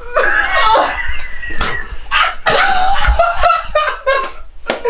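Loud laughter, several bursts of it, with no words.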